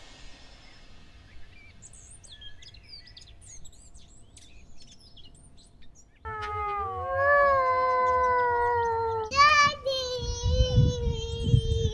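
Faint scattered bird chirps, then about six seconds in a singing voice starts suddenly, holding long notes that glide up and down, with low thuds joining near the end.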